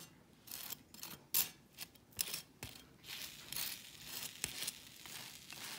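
A table knife scraping across crisp toast, spreading butter in a series of short, irregular strokes, with an occasional sharper click of the blade, one about a second and a half in.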